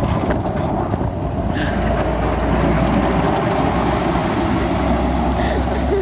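Snowplow truck driving past close by: loud, steady engine and road noise that grows a little louder about two seconds in.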